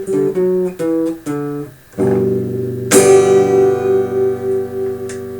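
Acoustic guitar playing the close of a song: a short run of picked notes, then a strummed chord about two seconds in and a louder final chord about three seconds in, which is left ringing and slowly fades.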